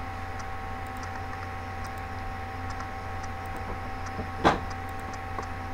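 Steady low electrical hum with a few faint fixed tones above it, the background noise of the recording setup. One short, sharp click about four and a half seconds in.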